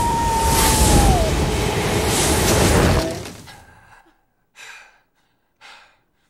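Film sound effect of a swirling sand whirlwind rushing loudly, with a high wail falling in pitch through it in the first second; the rush cuts off about three seconds in and fades. Then two short, sharp breaths.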